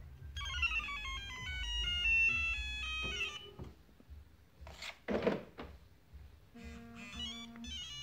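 Electronic alert melodies from a Pandora car alarm system: a quick stepping tune of beeps lasting about three seconds, a brief rustle of handling noise about five seconds in, then a second, shorter beeping tune near the end.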